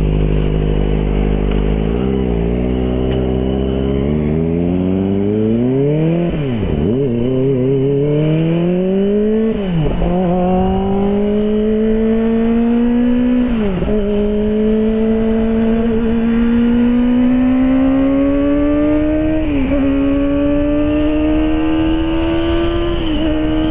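Kawasaki ZX-25R's inline-four engine breathing through an aftermarket Arrow exhaust: it idles high for the first couple of seconds, then pulls away and accelerates. The pitch climbs and drops sharply at each upshift, about five times.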